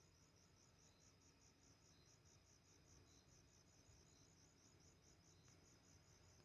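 Faint crickets chirping: a high-pitched trill in rapid, even pulses, about four or five a second, with a second, lower chirp roughly once a second.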